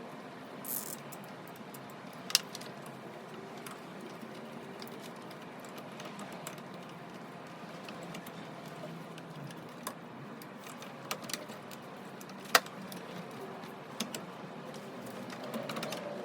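Scattered sharp clicks and light clinks over a steady background hiss, two of them much louder than the rest: one about two seconds in, one about three-quarters of the way through.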